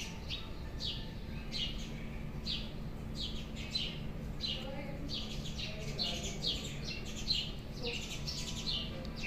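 Steady low hum of a car driving at motorway speed, with short high chirps falling in pitch, about two a second and unevenly spaced, over the top.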